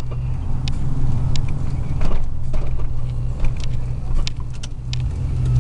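Steady low drone of a 2000 Chevrolet Silverado's 4.8-litre V8 and exhaust, heard inside the cab while the truck rolls slowly toward a red light. Small clicks are scattered throughout.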